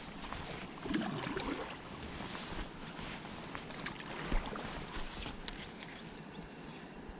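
Steady wash of water around a fishing kayak, with scattered small clicks and knocks.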